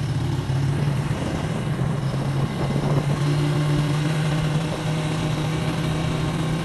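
Motorcycle engine running steadily while riding, a constant drone under a steady hiss.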